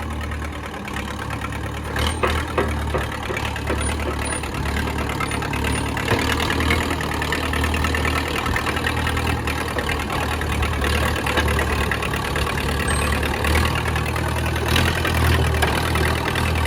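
Case 450 bulldozer's engine running steadily at idle, with a sharp knock about two seconds in.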